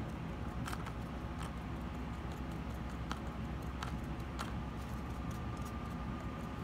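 Faint, scattered light taps and scratches of a paintbrush blotting weathering pigment into a plastic scale-model tank track, over a steady low room hum.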